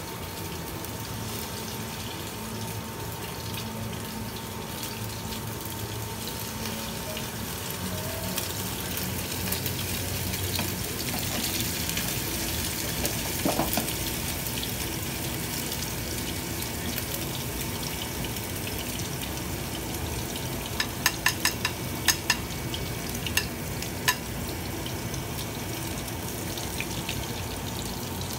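Patties of crab paste frying in oil in a nonstick pan, a steady sizzle. A few sharp clicks come in a cluster about three-quarters of the way through.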